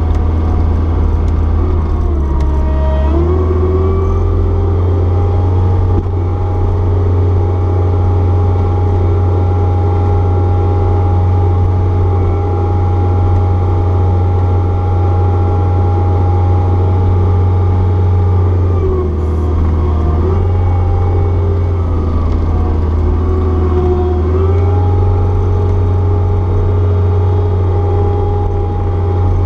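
Caterpillar 236B skid steer's diesel engine running steadily under load while plowing snow, its pitch climbing about three seconds in, then dipping and picking back up twice about two-thirds of the way through.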